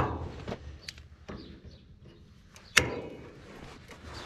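Pliers working a stubborn, rusted cotter pin out of a wagon wheel's axle nut: sharp metal clicks, the loudest right at the start and about three seconds in, with a few fainter ones between.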